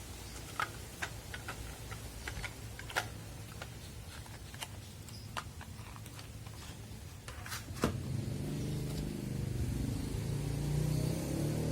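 Light clicks and taps of packaging being handled over a low background rumble, then from about eight seconds in a louder low droning sound that wavers in pitch.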